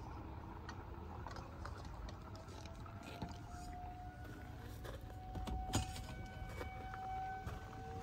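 Distant outdoor warning siren sounding during its monthly test: a faint tone that rises slowly in pitch and then holds, with a second, lower tone sliding up near the end. Sharp clicks and knocks from handling nearby, the loudest about two-thirds of the way through, over a low rumble.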